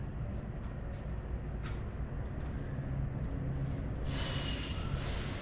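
Outdoor street ambience: distant traffic running steadily, with a brief hiss about four seconds in.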